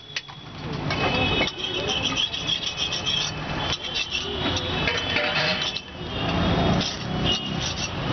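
Street traffic running by, with a low engine rumble that swells twice, mixed with indistinct voices.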